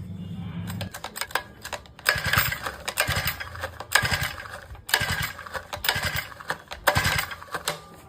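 Four-stroke brush cutter's recoil starter pulled repeatedly, about once a second, with the choke closed: the engine cranks with a rattling whir on each pull but does not catch, because it has a starting fault.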